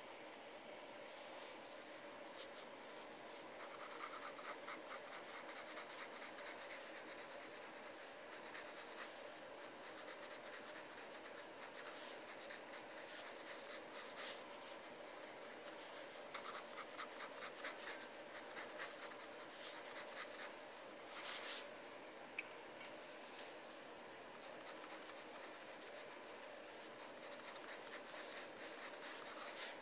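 Pencil lead scratching on paper in runs of quick, short sketching strokes.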